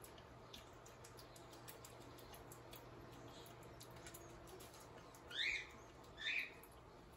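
Faint small clicks and smacks of a kinkajou chewing a peanut butter sandwich. Near the end come two short, rising, squeaky chirps about a second apart, much louder than the chewing.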